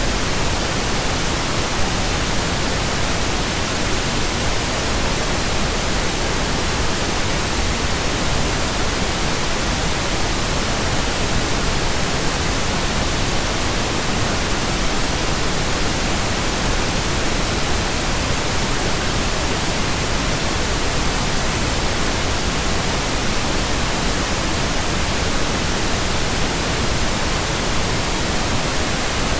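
Steady computer-generated pink noise: an even, unbroken hiss that does not change.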